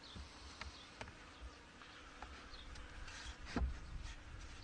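Honey bees buzzing around an open hive, with one louder buzz sweeping down in pitch about three and a half seconds in. A few light knocks come from the hive being handled.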